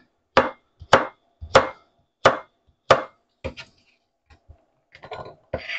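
Kitchen knife chopping zucchini into pieces: about six firm chops, roughly one every two-thirds of a second, then a few lighter, uneven taps toward the end.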